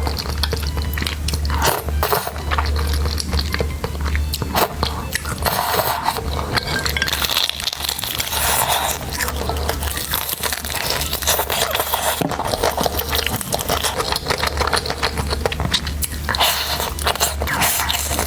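Close-miked eating: crunchy bites and chewing with a dense crackle of small clicks, over a steady low hum.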